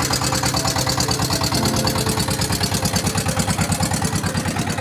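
Fishing boat's engine running with a steady, rapid chugging beat.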